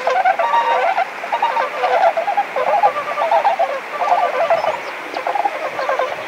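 A group of Bewick's swans calling continuously, many short calls overlapping with no pause.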